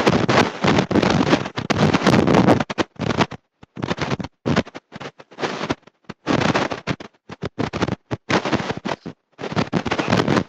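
Loud bursts of harsh, hissing noise that start and stop in the rhythm of talk, with short silent gaps between them and no words to be made out: a preacher's voice garbled into noise by a fault in the recording.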